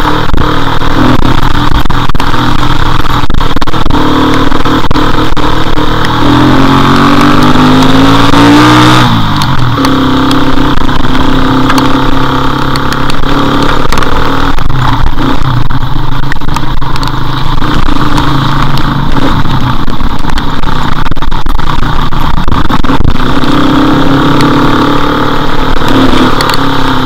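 Motorcycle engine running on the move, its pitch climbing from about six seconds in and falling sharply near nine seconds, then holding steady. A constant rush of wind and rain noise runs over the engine.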